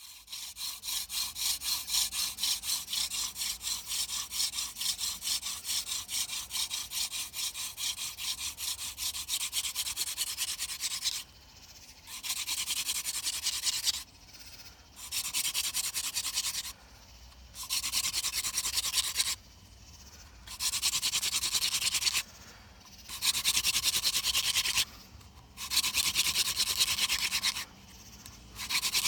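Hand drill fire-making: a wooden spindle spun back and forth between the palms, grinding in the notch of a wooden hearth board with a fast rubbing sound. It runs unbroken at first, then, about a third of the way in, breaks into bouts of about two seconds with short pauses as the hands go back up the spindle.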